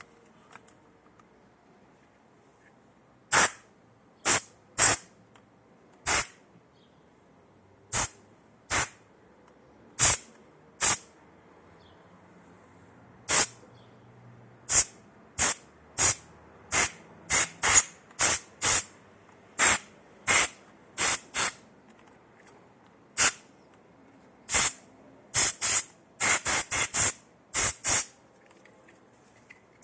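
Short bursts of spray from a can of compressed air, irregularly spaced and coming quicker and closer together near the end.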